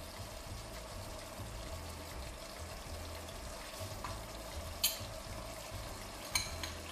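Lamb, onion and tomato frying in olive oil in a stainless steel pot: a steady, soft sizzle. Two short sharp clicks come near the end.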